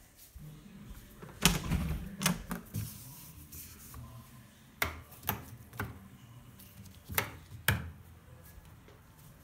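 A door being handled, with a clunk and rattle, then footsteps: sharp knocks in twos and threes about half a second apart.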